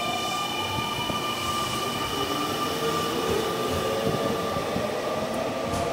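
Semboku 5000 series electric train pulling away, its renewed inverter drive and traction motors whining in tones that climb in pitch as it accelerates, over a steady high whine and wheel rumble. A couple of sharp clicks near the end.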